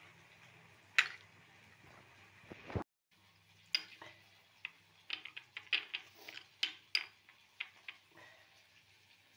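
A steel spoon stirring a wet spice paste on a ceramic plate, scraping and clinking against the plate. There is one sharp clink about a second in, then a quick irregular run of taps and scrapes after a brief cut near three seconds.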